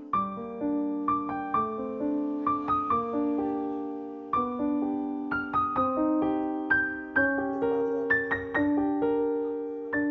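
Background piano music: a slow melody of struck notes, each fading as it rings.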